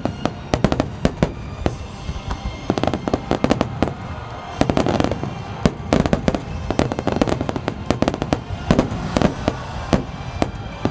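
Aerial fireworks shells bursting in a rapid barrage of sharp bangs and crackles. The barrage thins out for a couple of seconds and then grows denser again, with music playing underneath.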